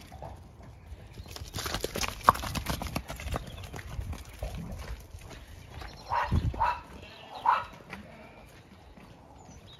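Horses' hooves and footsteps knocking and thumping on soft ground, densest in the first few seconds. Three short animal calls follow in quick succession a little past the middle.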